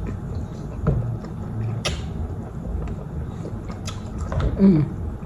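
Eating sounds from a ramen mukbang: chewing with a few sharp clicks of a utensil, over a steady low rumble. Near the end comes a short falling tone.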